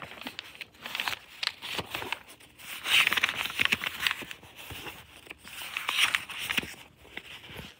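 Pages of a paperback book being flipped and riffled by hand: paper rustling and flicking, with two longer runs of rapid page flicks about three and six seconds in.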